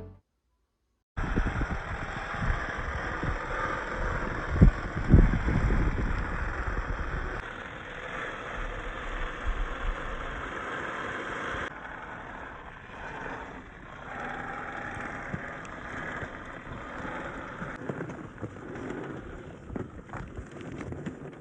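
Axial SCX10 III 1/10-scale RC crawler, driven by a brushless motor, driving over rough ground: a steady noisy rush with a few heavier thumps about five seconds in. The sound changes abruptly twice, as at cuts between clips.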